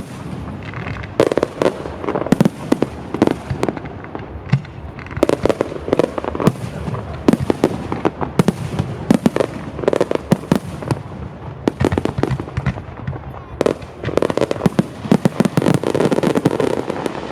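Aerial fireworks display: shells bursting in rapid succession with many sharp bangs and crackles, thickest in the last few seconds.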